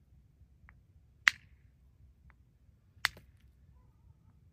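Two sharp clacks of stone struck against stone, hand-held rocks knocked together, about a second and a half apart: basalt being tested on the hillside.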